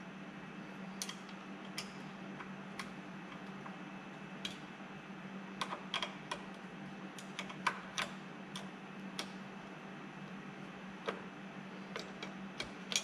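Irregular sharp metal clicks and clinks of a 10 mm wrench working the bolts of the water pump cover on a Tohatsu outboard's lower unit, over a steady low hum.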